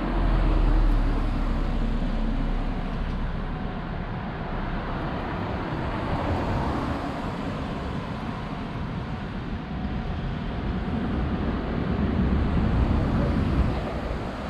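Road traffic: cars passing on the street alongside, a steady rushing noise that swells about a second in and again near the end.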